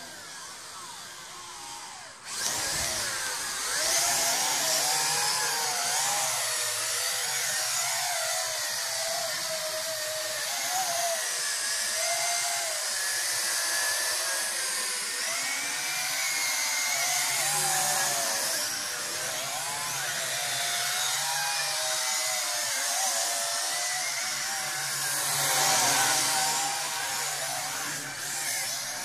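Apex toy quadcopter's motors and propellers buzzing in flight, the pitch wavering up and down as it is steered; the buzz gets suddenly louder about two seconds in.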